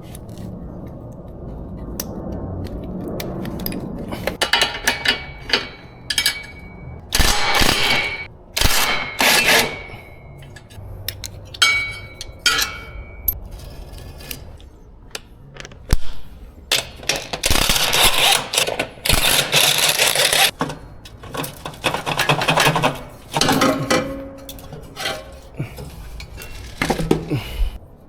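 Metal tools and engine parts clinking, scraping and clattering in irregular bursts as an engine is taken apart, a few strikes leaving a brief metallic ring.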